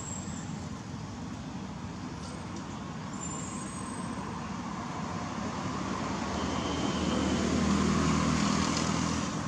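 Motor vehicle traffic: a steady road noise, with a vehicle's engine rumble swelling about seven seconds in and fading near the end.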